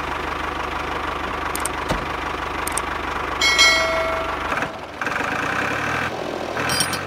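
Tractor engine running steadily with an even low pulse, its tone shifting about five seconds in. A brief loud high ringing sound cuts in about three and a half seconds in, and a shorter one near the end.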